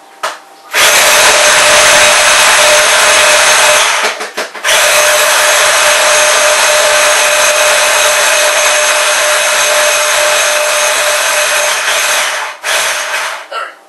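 Small electric blender chopping onions: the motor runs with a steady whine for about three seconds, stops briefly, then runs again for about eight seconds and ends in a few short pulses.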